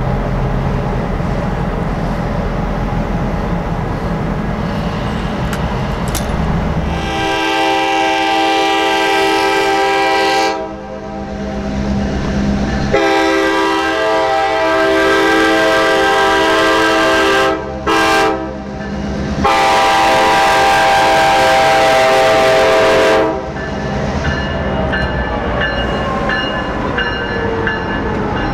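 Reading & Northern EMD F-unit diesel locomotives rumble as they approach. Then the lead unit's multi-chime air horn blows the grade-crossing signal: two long blasts, one short and one long. Near the end the engine sound falls in pitch as the train passes.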